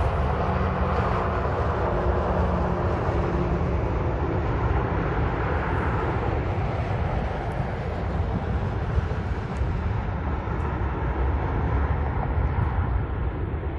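Boeing 787-8 airliner's jet engines and rolling noise during the landing rollout: a steady rumbling jet noise, with a low hum in the first few seconds and the higher part of the sound thinning toward the end as the aircraft slows.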